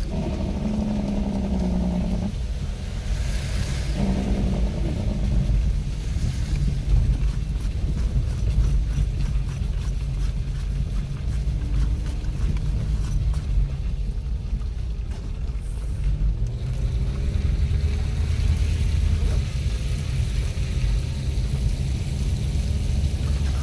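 Car driving along a rough, partly unpaved road, heard from inside: a steady low rumble of engine and tyres. A brief pitched sound comes near the start and again about four seconds in.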